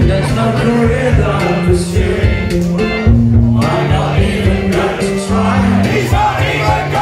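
Live rock band playing loudly: drums, a stepping bass line and keyboard, with singing.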